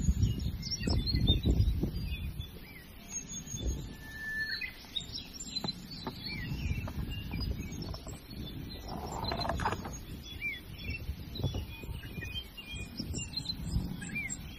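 Small songbirds chirping: many short, high, scattered chirps, over a low rumble that is strongest in the first two seconds.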